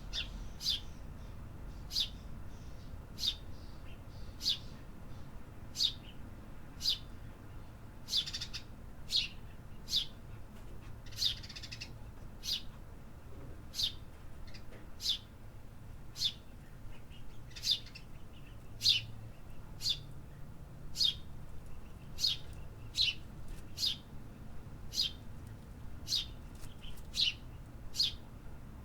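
A bird giving short, sharp chirps over and over, about one a second, over a low steady rumble of city background noise.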